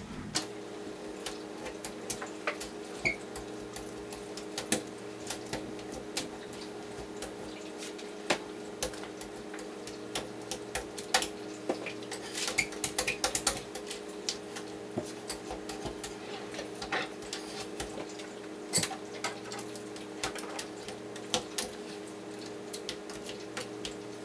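Plastic card sliding and scraping over wet window film on glass as it squeegees the water out, giving irregular small clicks and ticks in clusters. A steady low hum runs underneath.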